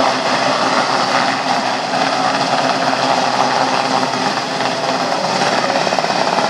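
Westland Sea King helicopter hovering, its main and tail rotors and twin turboshaft engines making a loud, steady noise.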